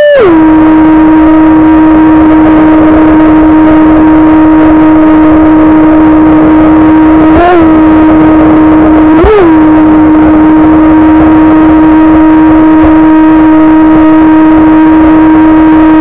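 Brushless outrunner motor and 20 mm water-jet drive of an RC jet boat whining at a steady pitch, picked up by the onboard camera, with a hiss beneath. The pitch drops just as the sound begins, then jumps up briefly twice about halfway through.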